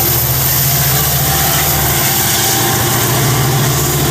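EMD F59PHI diesel-electric locomotive idling steadily and loudly.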